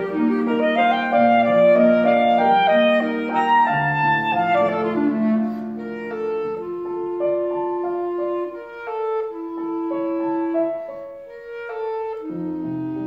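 Clarinet playing a classical melody with piano accompaniment, several notes sounding together; the line moves in quicker notes at first, then settles into longer held notes from about halfway.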